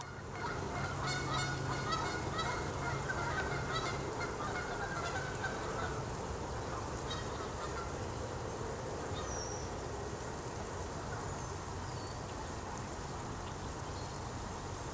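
Repeated honking bird calls for about the first six seconds, over a steady outdoor background, then a few short high bird chirps later on.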